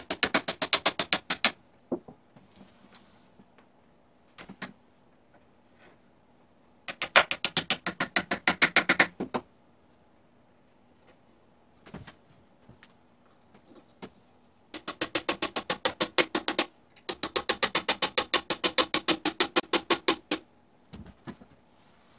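Small hammer tapping wooden pegs and wedges into the joints of a wooden rocking chair: four quick runs of sharp knocks, several a second, each lasting two to three seconds, with a few single knocks between.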